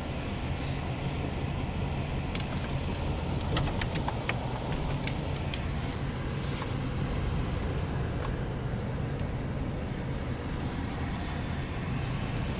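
Chevrolet Blazer's engine running steadily under light load while plowing, heard from inside the cab, with a few sharp clicks and rattles in the first half.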